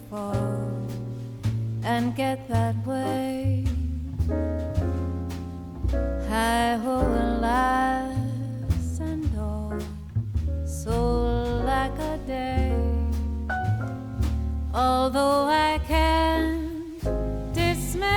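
Jazz ballad music: a gliding melody over piano and double bass.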